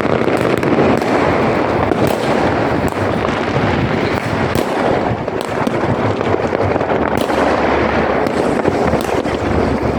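Fireworks and firecrackers going off in a continuous, dense barrage of bangs and crackling pops.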